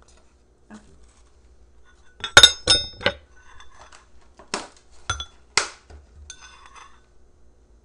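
A metal spoon clinking against a ceramic bowl as food is spooned out. There are about six sharp, ringing clinks, the first three in quick succession a little over two seconds in and three more spaced about half a second apart between four and a half and six seconds in, followed by a faint rattle.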